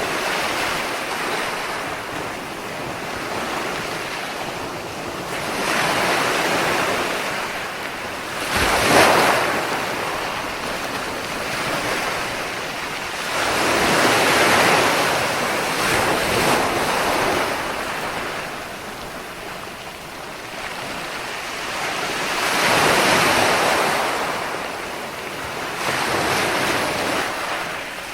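Ocean waves breaking and washing on the shore, the surf swelling and fading in repeated surges a few seconds apart; one sharp crash about nine seconds in is the loudest.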